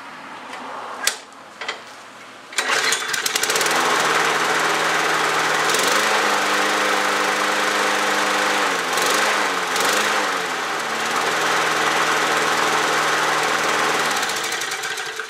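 A Murray push mower's 5 1/4 hp Briggs & Stratton Quantum single-cylinder engine is pull-started on its freshly rebuilt carburetor. It catches about two and a half seconds in and runs steadily, its speed shifting up and down a few times midway, then dies away near the end.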